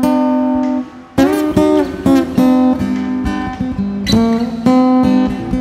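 Acoustic guitar playing a song's intro, chords and notes plucked and left to ring, with a brief lull about a second in.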